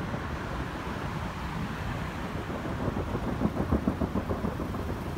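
Distant fireworks booming: a steady low rumble, with a quick run of dull thumps about three and a half seconds in.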